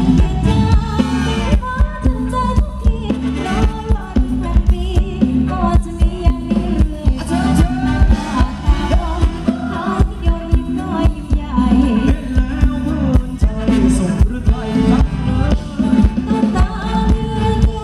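Thai ramwong dance music from a live band over loudspeakers: a singer over a steady, heavy beat.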